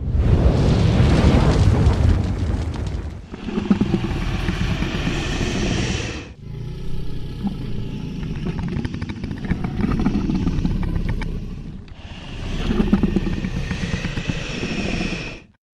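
Designed mythical-creature sound effects: a run of about four loud, deep, noisy creature sounds, one after another, each a few seconds long, changing about three, six and twelve seconds in and stopping just before the end.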